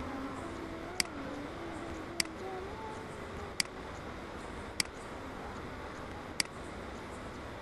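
Computer mouse clicking, five single sharp clicks a second or so apart, as the paint-bucket fill tool fills squares one at a time, over a steady hiss.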